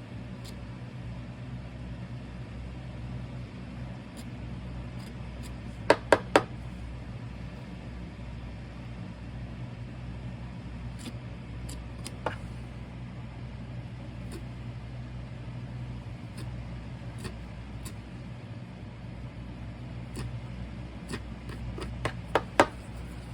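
Steady low electrical hum from running equipment, with three sharp clicks close together about six seconds in and a few more clicks near the end.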